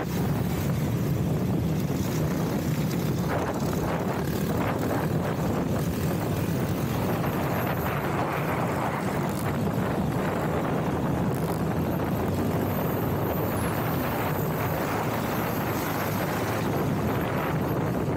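Honda CRF X enduro motorcycle's single-cylinder four-stroke engine running at a steady pace while riding.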